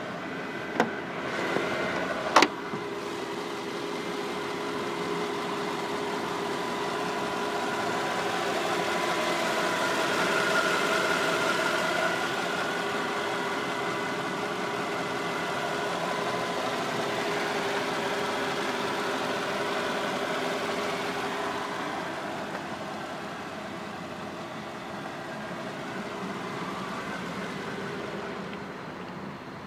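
Mercedes S55 AMG 5.4-litre V8 idling steadily with a constant whine, a little louder in the middle. Two sharp clicks come near the start.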